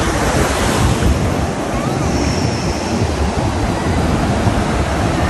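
Ocean surf washing in over shallow sand, a steady rushing wash, with wind buffeting the microphone.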